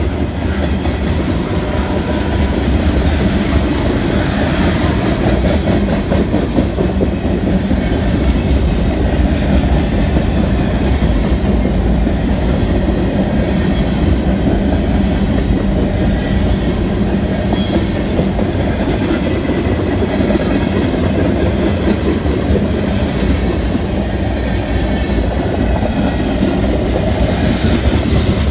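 Freight train cars (covered hoppers, then tank cars) of a BNSF manifest train rolling past: a steady rumble of steel wheels on the rails.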